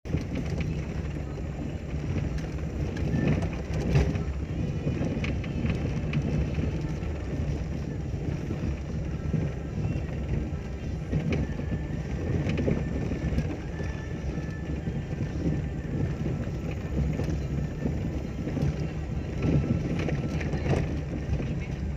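Car cabin noise while driving on a bumpy dirt road: a steady low rumble from the engine and tyres, with scattered knocks and rattles over the bumps.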